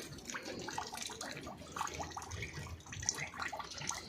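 Meltwater trickling and dripping from thawing ice and snow: many small irregular drips over a faint running trickle.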